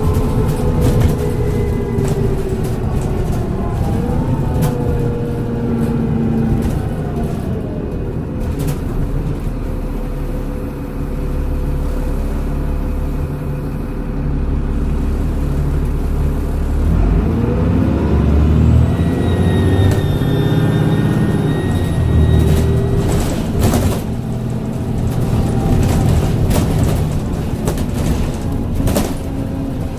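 Transbus Trident double-decker bus with a Voith automatic gearbox: the engine and transmission whine fall away as it slows, it runs low and steady for several seconds, then the pitch rises again as it pulls away, with a high turbo whistle about two thirds of the way in. Rattles and clicks run throughout.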